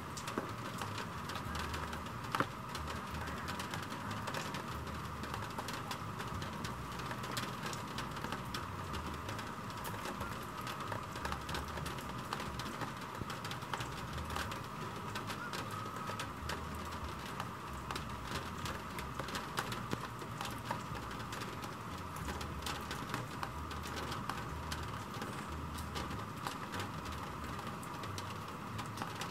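Steady rain falling, a constant hiss with many small raindrop ticks and one sharper tick about two seconds in.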